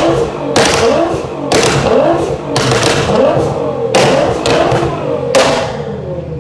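Nissan GT-R R35's twin-turbo V6, tuned to about 700 hp, revved in quick repeated blips, each with a loud sharp bang from the exhaust; about seven bangs, the last a little over five seconds in.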